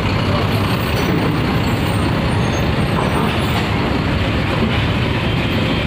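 Mercedes-Benz OH 1626 coach's rear-mounted diesel engine running as the bus drives slowly past and away, over the steady rumble of other heavy vehicles in the queue.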